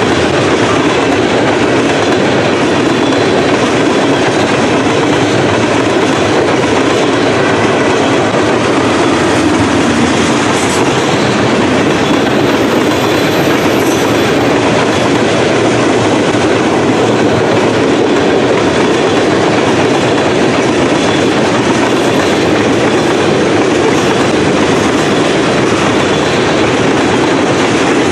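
Freight train of tank cars rolling past close by: a loud, steady rumble and rattle of steel wheels on the rails.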